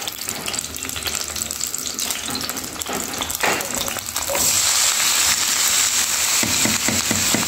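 Oil heating in a frying pan with a light sizzle. About halfway through, diced red onions are tipped in and the sizzle grows louder and brighter, then holds steady.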